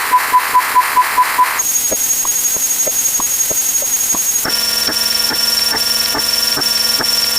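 A rapid string of sped-up sound effects: a fast electronic beeping at about five beeps a second, then a steady high-pitched whistle over a hiss with scattered clicks, then another steady high tone with regular ticks about three times a second.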